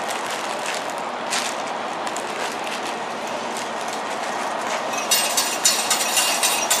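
Steady background noise, then from about five seconds in a quick run of metallic clinks and rattles from an open snack vending machine being restocked by hand.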